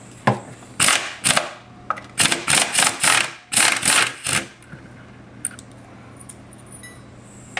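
Impact wrench with a long extension backing out the housing bolts of a pool pump, running in a quick series of short bursts over the first four and a half seconds; after that only a few faint clicks.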